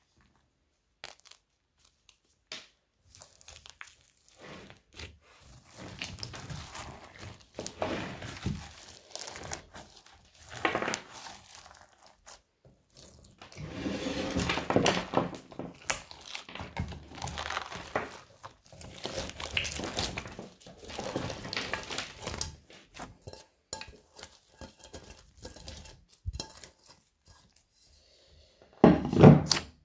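Crunchy slime being squeezed and kneaded by hand: irregular crackling and crunching of crumbly chalk-like pieces and foam beads, loudest in the middle, with a dull thump near the end.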